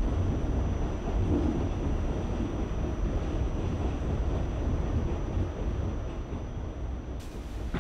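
Subway train running, a steady low rumble heard from inside the car, easing slightly near the end.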